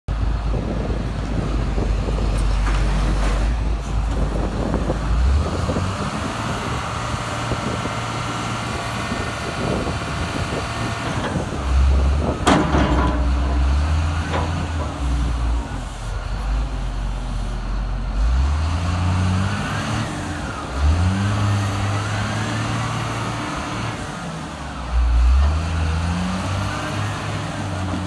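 John Deere 624J wheel loader's diesel engine running and revving up and down repeatedly while the loader works its boom and bucket and drives, with a high hydraulic-type whine at times and a single sharp clank about twelve seconds in.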